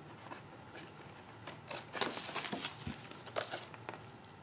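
Sheets of printed cardstock rustling and sliding against each other as they are handled, with a cluster of soft brushes and taps in the middle.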